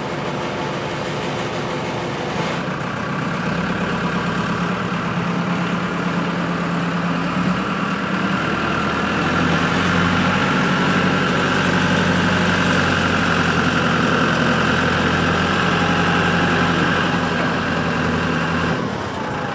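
Rough-terrain forklift's engine running as it tows a tractor in a pull-start attempt. It gets louder a couple of seconds in and eases off near the end. The tractor does not start.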